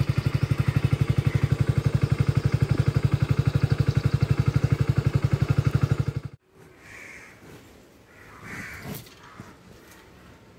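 Small engine idling with a fast, even thudding pulse that cuts off abruptly about six seconds in. Then a much quieter outdoor background with a few brief calls.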